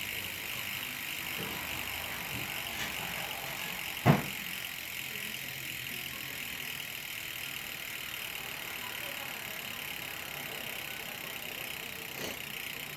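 Fulcrum Racing Quattro rear hub freewheeling as the wheel spins, its pawls making a fast, continuous buzz of clicks that fades slightly as the wheel slows. A single sharp knock stands out about four seconds in.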